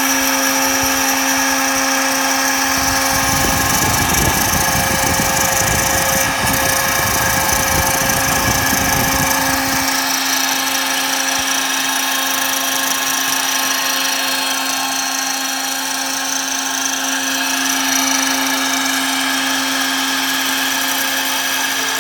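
Router spindle cutting plexiglass with a 3 mm bit, running with a steady high whine over a hiss. A rougher low rumble joins in from about four seconds in and drops away near ten seconds.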